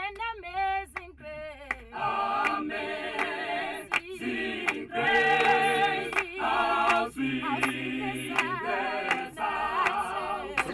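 Mixed a cappella choir singing in harmony with no instruments. A single voice leads for the first two seconds, then the full group with bass, tenor and soprano parts comes in.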